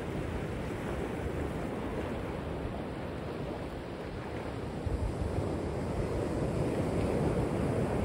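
Ocean surf breaking offshore and washing over the shallows: a steady rushing wash that swells a little louder about five seconds in.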